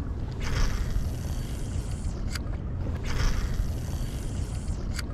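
Wind buffeting the microphone, with two rushing hisses of about two seconds each. Each hiss ends in a sharp click.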